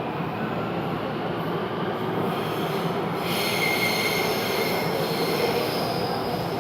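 Steady rumble of a train in motion, with a high-pitched wheel squeal coming in about halfway and holding to the end.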